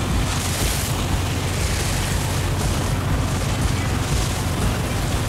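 A boat's engine droning steadily under a loud rush of wind and water noise on the microphone as the boat moves across open sea, with a brief gust-like swell in the hiss about a second in.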